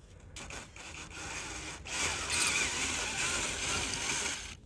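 Cordless drill with a 7mm socket running in reverse, backing out a door-trim bolt. It starts quietly, runs louder and steady for about two and a half seconds, and stops abruptly near the end.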